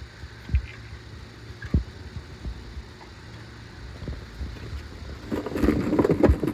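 Handling noise on a phone's microphone: scattered low thumps and rubbing as the phone is moved about, growing louder and busier about five seconds in.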